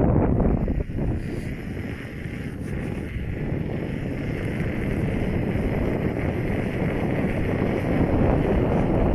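Wind buffeting the microphone of a rider on a moving electric unicycle: a steady, loud rushing. It dips about a second in, then slowly builds back up.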